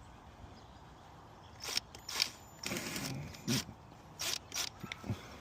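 Several sharp clicks and short scraping knocks from handling parts and tools, spaced irregularly over a faint steady background; no engine running.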